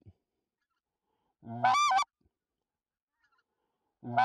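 Goose call blown in loud honks about two and a half seconds apart, each a low note breaking up into a high double honk, calling to an approaching flock of geese.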